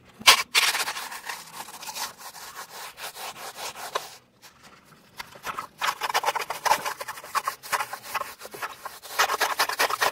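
Hand foam rasp scraping back and forth across expanded-polystyrene ICF foam in quick, rough strokes, with a short pause about four seconds in; the foam is being roughened so peel-and-stick flashing will adhere.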